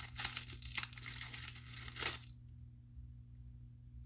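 Plastic wrapping crinkling and tearing as a small packet is opened by hand, stopping about two seconds in.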